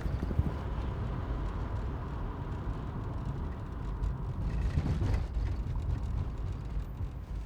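Volkswagen Golf Country driving: a steady low engine and road rumble that cuts off suddenly at the end.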